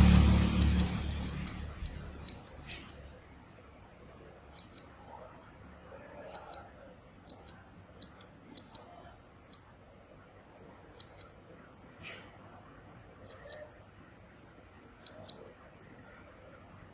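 Sharp, short clicks at irregular intervals, roughly one a second, over a quiet background. A loud low rumble fades out over the first two seconds or so.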